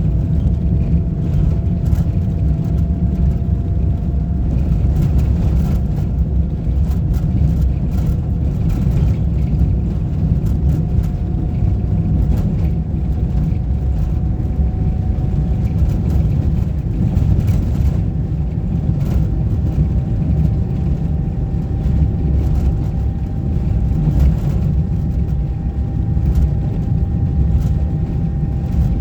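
Motor vehicle driving steadily: a continuous low engine and road rumble, with a faint whine that slowly creeps up in pitch and scattered light rattles.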